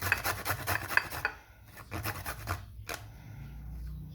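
Peeled white turnip being grated on a fine hand grater: a run of rapid rasping strokes for about a second, a short pause, then a second, shorter run about two seconds in.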